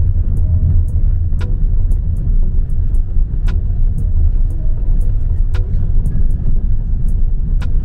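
Heavy, steady low rumble of road and engine noise from inside a car moving through city traffic.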